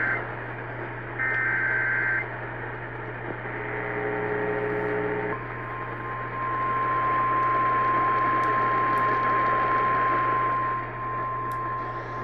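Emergency Alert System broadcast heard over AM radio, signalling a flash flood warning. The tail of a screeching SAME data burst is followed by a second burst about a second in and a buzzy chord of tones for about two seconds. Then comes a single steady attention tone near 1 kHz, over constant radio hiss and hum.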